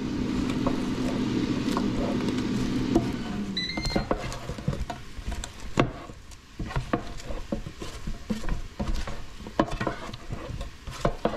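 Silicone spatula stirring crisp roast new potatoes in an air fryer basket: irregular scrapes, taps and crunches. Over the first three and a half seconds a steady appliance fan hum winds down and stops, with a short high beep as it does.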